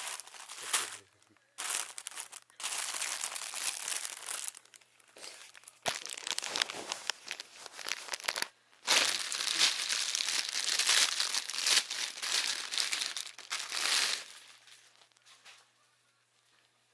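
Packaging crinkling and rustling in bursts as it is handled and pulled open by hand, with a brief pause about halfway, dying away a few seconds before the end.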